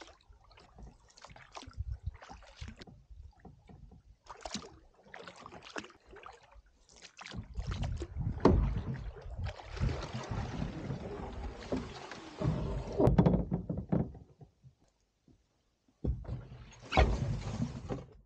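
A canoe being paddled with a double-bladed paddle: strokes dipping and splashing in the water, with scattered knocks against the hull. A louder stretch of rushing and heavy thumps comes in the middle, a brief lull follows, and a sharp knock comes near the end.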